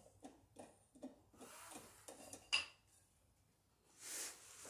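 A heavy ceramic coffee mug being handled, with small knocks and one sharp clink about two and a half seconds in.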